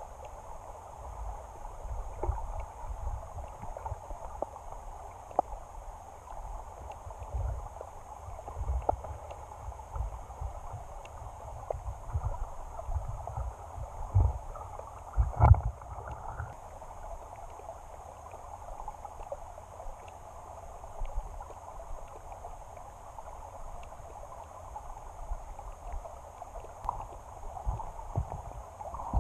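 Creek water flowing, heard muffled through an underwater camera lying on the creek bed: an even rush with uneven low rumbling and scattered small clicks. A louder knock comes about halfway through.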